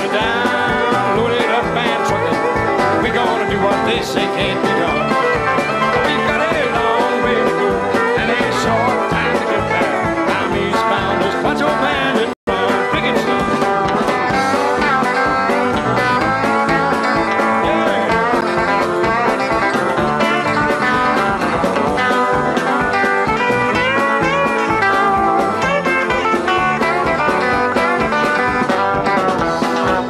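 Background music: a country-style track with guitar, at a steady level, with a momentary dropout about twelve seconds in.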